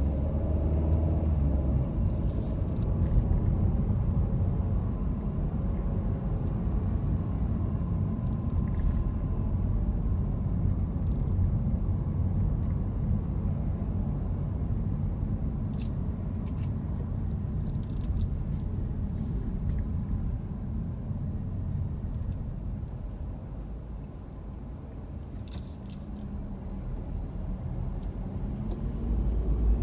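Car interior road noise while driving in city traffic: a steady low drone of tyres and engine, easing briefly about three-quarters through and building again near the end, with a few faint clicks.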